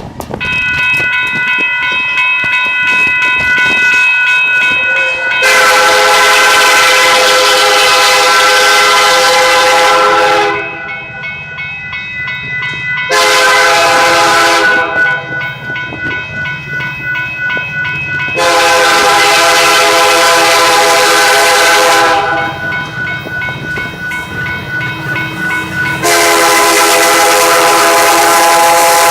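Union Pacific locomotive air horn sounding a chord of several notes in long, loud blasts, with the chord carrying on fainter and wavering between blasts.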